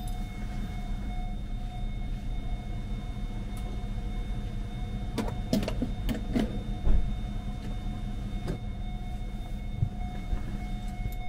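A car being refuelled at a gas pump: a steady low mechanical hum with faint steady high tones, and a few sharp clicks and a knock about halfway through as the fuel nozzle is handled.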